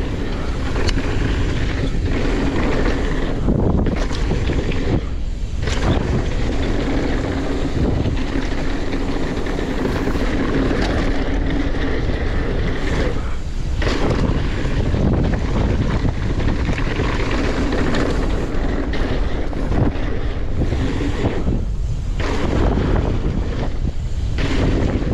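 Wind rushing over the microphone of a mountain bike ridden down a dirt trail, mixed with tyre noise, with a few brief lulls.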